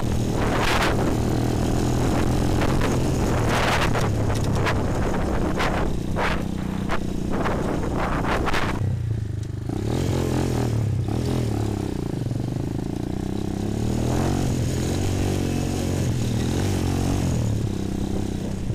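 Bashan 250 quad's engine running under way over a rutted dirt track. For the first half, wind rush and knocks and rattles from the bumps ride over it. About nine seconds in the noise drops, and the engine note then rises and falls as the throttle is opened and closed.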